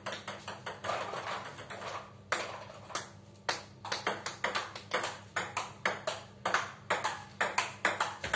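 Table tennis rally: the ball clicking off the rubber-faced bats and bouncing on the table in a quick, regular run of sharp ticks, a few a second, ringing slightly in the hall.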